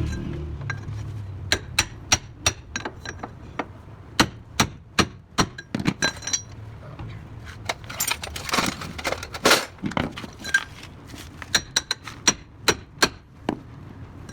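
Metal tools and car parts clinking and tapping together in quick, irregular sharp clicks, with a denser run of knocks about two-thirds of the way through.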